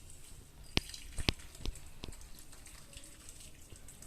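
Boiled herbal decoction being poured through a strainer into a glass: a faint trickle and dripping, with a few sharp clinks about a second in.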